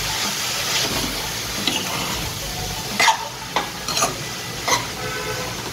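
A metal spoon stirring poha (flattened rice) in a metal kadai, scraping and knocking against the pan several times at irregular intervals, the sharpest knock about three seconds in. Under it runs a steady sizzle from the pan on the flame.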